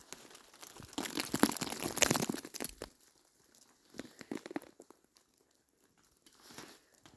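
Dense crunching and crackling of ice and icy-crusted snow for about two seconds starting a second in, then a shorter burst of crunches around four seconds.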